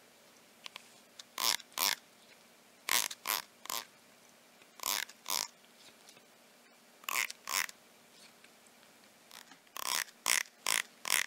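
A blue plastic comb's teeth being strummed with a finger in short rasps, in pairs and threes, with the cat answering with short throaty animal noises. The strokes come faster near the end.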